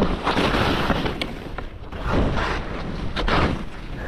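Skis turning through snow: about three rushing swooshes of snow scraping under the skis, with wind rushing on the microphone and a couple of sharp clicks.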